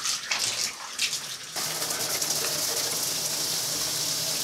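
Overhead rainfall showerhead spraying water in a tiled shower stall. It splashes unevenly at first, then settles into a steady, even hiss from about a second and a half in.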